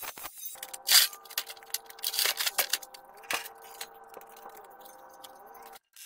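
Angle grinder running on steel box section: a steady motor whine that dips slightly in pitch now and then, with several sharp scraping bursts as the disc bites the metal. It cuts off suddenly near the end.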